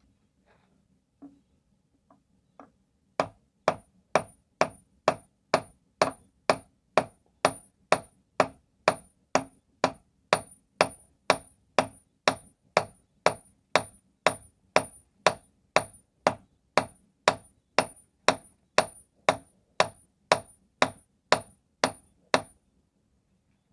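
Hand hammer forging steel on a stake anvil with a tool-steel face: a few light taps, then steady even blows about two a second, each with a short high ring.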